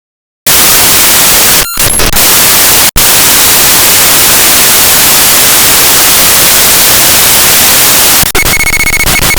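Raw binary data from a disk image of a downloads folder, played back as audio: loud, harsh static that starts about half a second in and cuts out briefly twice. Near the end it turns into a buzzy, rapidly repeating pattern of tones.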